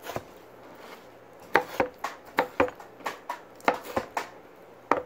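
Kitchen knife chopping peeled cucumber on a cutting board: about a dozen sharp knocks of the blade hitting the board, in an uneven run that starts about a second and a half in.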